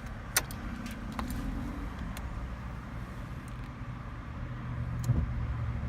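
A car engine running at a steady idle, with a few short light clicks over it.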